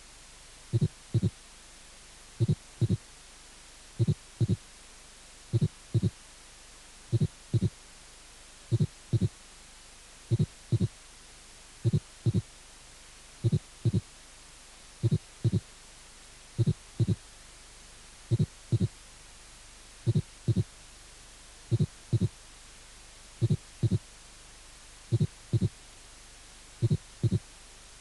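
Heart sounds played as a teaching example of a four-beat rhythm: the first and second heart sounds with added third and fourth heart sounds. Dull low thumps come in two close groups per cycle, about one cycle every 1.6 seconds, over a faint steady hiss.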